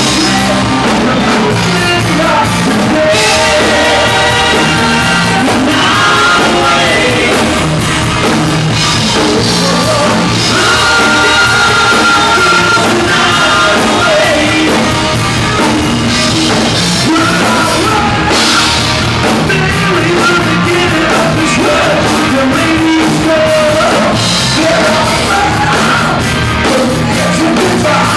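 Live rock band playing a hard-rock song: electric guitar, drum kit and a male lead singer singing into a microphone.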